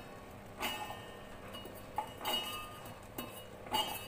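Handfuls of green peas tipped from a steel bowl into a steel mixer-grinder jar: about five separate light metallic clinks and rattles, each with a short ring.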